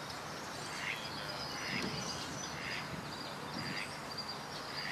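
An animal call repeated five times, about once a second, over steady background hiss.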